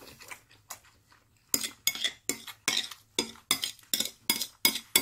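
Metal fork clinking and scraping against a ceramic dish while mixing noodles in black bean sauce, about three clinks a second from about a second and a half in.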